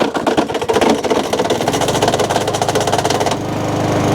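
Mountfield SP454 mower's WA45 overhead-valve engine running, with a loud, rapid rattling racket from underneath the deck; a little over three seconds in the rattle drops away and the engine runs on more smoothly. The noise underneath is typical of a snapped drive-belt cover, as the owner suspects.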